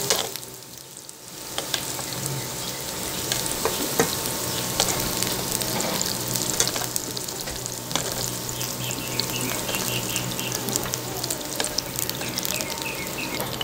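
Carrot slices frying in hot oil in a nonstick pan: a steady sizzle, with metal tongs clicking against the pan as the slices are picked out. The sizzle dips for about a second near the start.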